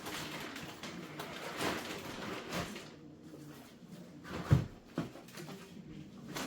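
Groceries being handled and moved: packaging rustling and a few knocks of items being picked up and set down, the loudest knock about four and a half seconds in.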